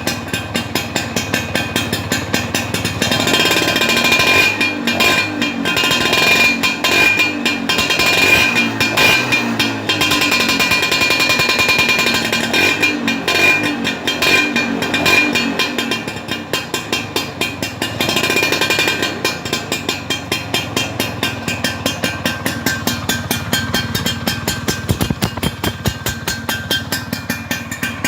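Vespa scooter engine running through its exhaust, idling with a fast even pulse and revved up in several longer swells during the first twenty seconds before settling back to idle.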